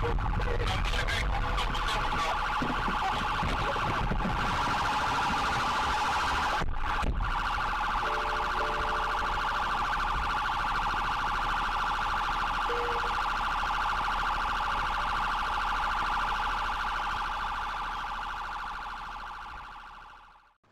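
Police car siren sounding in a fast, steady warble that fades out near the end.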